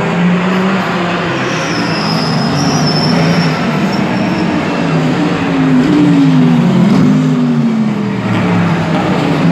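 Race car engines running at speed on a circuit, the engine note falling several times in the second half.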